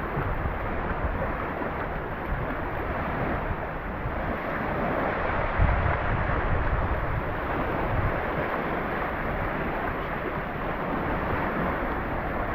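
Sea waves: a continuous wash of surf, swelling a little around the middle, with wind rumbling on the microphone.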